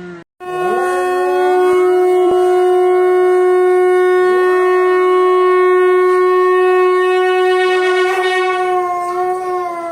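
Conch shell (shankh) blown in one long, steady note, starting about half a second in and tailing off near the end, with fainter wavering dog howls along with it.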